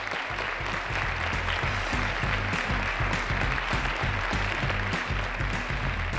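Audience applauding over closing music with a steady pulsing bass beat.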